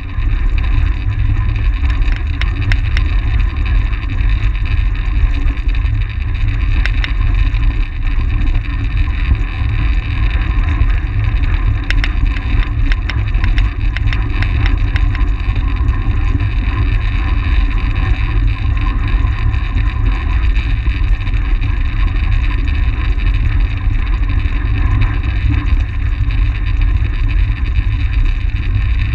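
Steady wind rumble on the microphone of a camera mounted on a track bike at race speed, with a fainter whir of the bike's tyres and drivetrain underneath.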